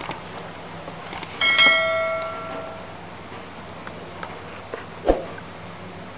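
A click, then a single bright bell chime that rings and fades over about a second and a half: the notification-bell sound effect of an animated subscribe button. A short sharp sound comes about five seconds in.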